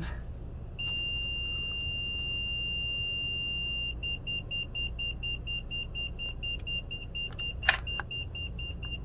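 Vehicle warning chime sounding after the ignition key is turned on: a steady high beep from about a second in that changes to a rapid pulsing beep, about four or five a second. A sharp click near the end.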